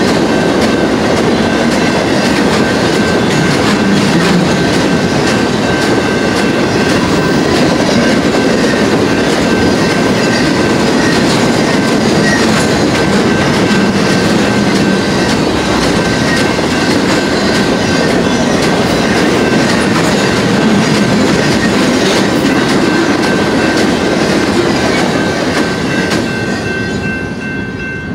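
Intermodal freight train's trailer and container cars rolling fast past a grade crossing: a steady rumble with the clatter of wheels over rail joints, while the crossing bell rings. The train noise falls away near the end as the last car passes.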